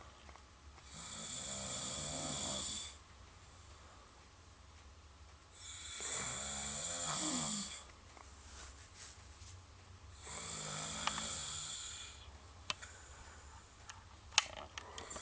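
A man snoring: three long rattling snores on the in-breath, about four to five seconds apart, with quiet breathing between them. A few sharp clicks come near the end.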